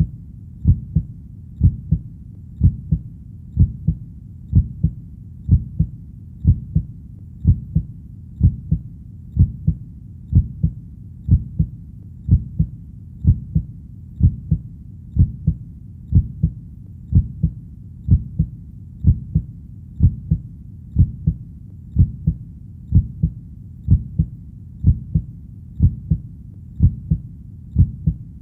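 Heartbeat in a steady lub-dub rhythm of about one beat a second, each beat two low thumps close together, with a faint steady low rumble between beats.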